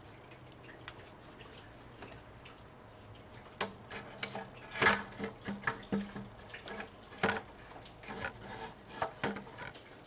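Irregular light clicks, clinks and knocks of hand tools and metal engine parts being handled, starting about three and a half seconds in, with the sharpest near the middle.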